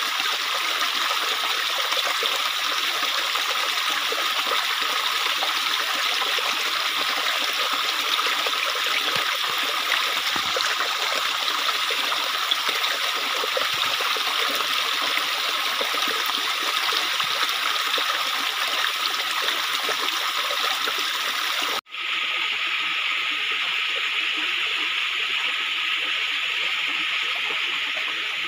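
Shallow rocky stream running and trickling over stones, a steady rush of water. About 22 seconds in it breaks off for an instant and comes back slightly softer.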